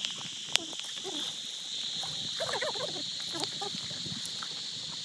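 Insects droning steadily with a high, even buzz, with one sharp knock just after the start.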